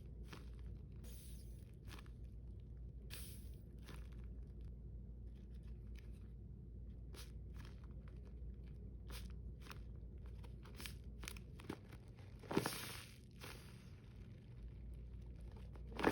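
Handmade paper squishies covered in clear packaging tape being squeezed and handled: short, irregular crinkles and crunches, with one louder, longer crackle about three-quarters of the way through.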